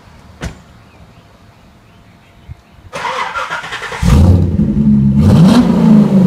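A car door shuts with a single thump about half a second in. About three seconds in, the Chevrolet Corvette C6's V8 is started and catches, then is revved loudly, its pitch rising and falling.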